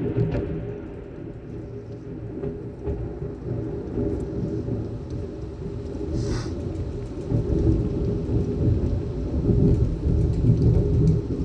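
Rolling thunder rumbling through heavy rain, easing about a second in and building again in the second half, with raindrops ticking.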